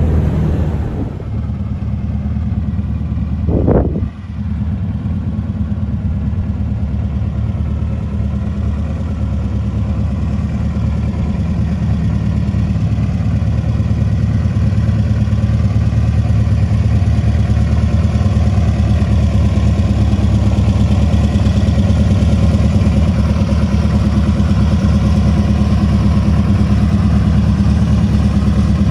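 Air-cooled flat-four engine of a 1972 VW Super Beetle running steadily under way. About four seconds in there is a short surge in the engine note followed by a brief dip.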